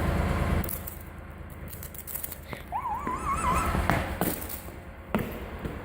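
Several sharp, separate clicks from a lighter's flint being struck, the loudest near the end, with a short wavering whistle-like tone about three seconds in.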